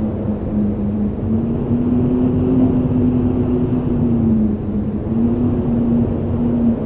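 Howling autumn wind: a low rushing noise with a howling tone that wavers up and down slightly in pitch.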